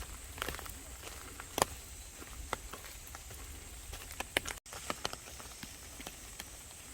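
Footsteps on a forest trail: scattered light, irregular clicks and crackles over a faint steady outdoor hiss.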